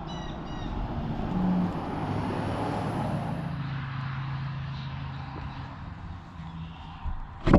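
A road vehicle passing, its engine and tyre noise swelling and then fading over several seconds. A single sharp knock comes near the end.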